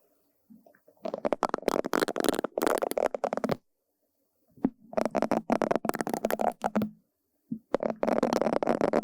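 Bristle brush strokes sweeping over a surface, with a crackly, scratchy texture. They come in three bursts of two to three seconds each, starting about a second in, with brief pauses between them.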